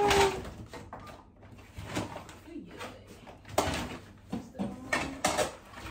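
Kitchen tidying: scattered knocks and clatter of items and cupboard doors as things are put away, with snatches of voices and a drawn-out voice fading at the very start.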